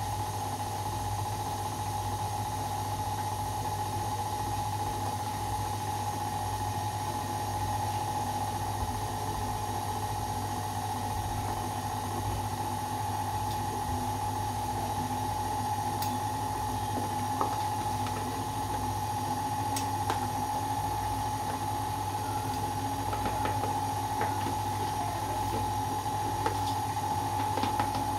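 Electric stand mixer running steadily, its paddle beating chocolate cake batter as flour is added: an even motor hum with a steady whine, and a few faint ticks in the second half.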